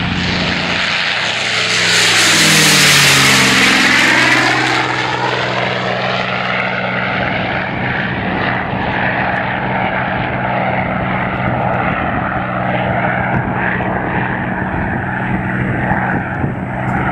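P-51C Mustang's Packard Merlin V-12 engine at full power on climb-out. It is loudest about three seconds in as the plane passes, its pitch dropping, then it runs on as a steady drone while the plane climbs away.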